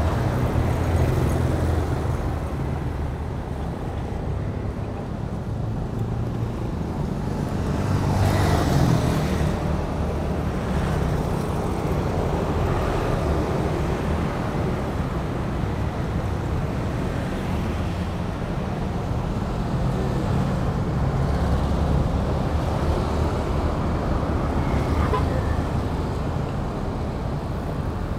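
Street traffic: motorbikes and cars passing along a city road, a steady low engine and tyre noise, with one vehicle passing close about eight seconds in.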